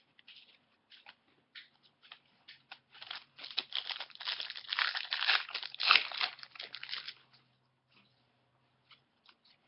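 Crinkling and tearing of a hockey card pack's wrapper, with scattered small rustles and clicks. The crinkle thickens about three seconds in and dies away about seven seconds in.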